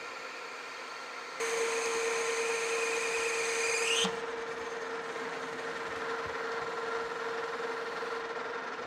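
Metal lathe turning a metal shaft under power. About a second and a half in, the cutting tool bites in with a louder cutting noise and high whining tones. One of those tones rises sharply and the cut drops away at about four seconds, leaving the lathe running with a steady hum.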